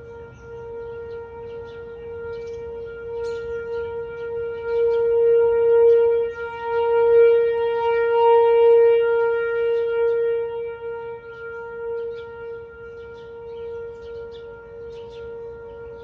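Whelen 4004 electronic outdoor warning siren sounding a steady tone on test. The pitch holds constant while the level swells up through the middle and eases off again.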